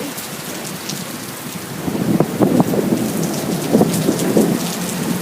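Heavy thunderstorm rain falling steadily in strong wind. About two seconds in, a louder, uneven rumble sets in and keeps going.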